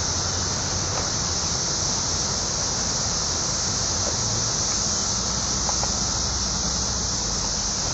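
Dense chorus of periodical cicadas (the 17-year Brood XIII) singing en masse: a steady, unbroken high-pitched hiss.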